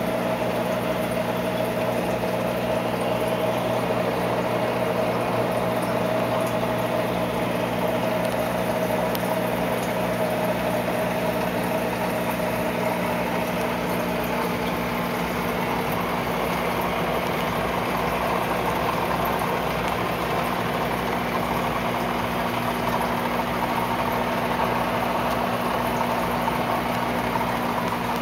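Aquarium filter running: a steady electric motor hum with an even hiss of moving water.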